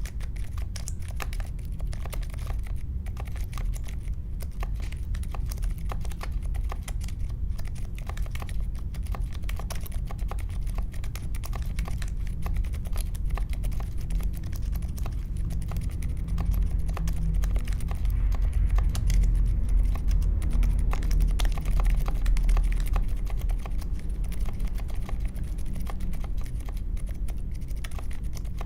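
Mechanical keyboard with unlubed Akko CS Vintage White linear switches in an aluminium case with foam and tape mods, typed on continuously in a fast, dense stream of key clacks. The typing gets louder for several seconds past the middle, then settles back.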